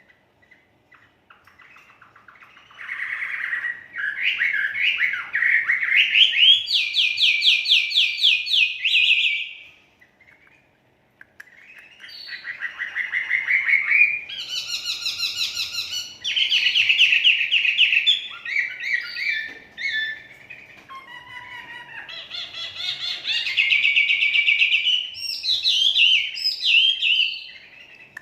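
Wambei songbird singing in long phrases of fast trills and whistled notes: three bursts of song, each several seconds long, with short pauses between.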